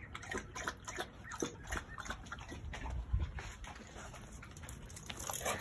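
A dog lapping water from a metal bowl: quick, irregular wet clicks and splashes that die away after about two and a half seconds.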